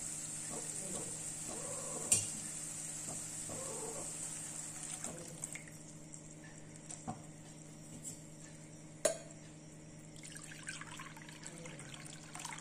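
Apple pieces sizzling in hot ghee in a nonstick pan as water is poured in from a bowl. The sizzle dies down about halfway through, and there are a few sharp clinks.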